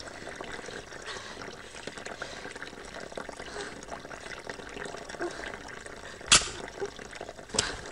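Water trickling and running in a bathtub. Two sharp knocks near the end, the first the louder, about a second and a half apart.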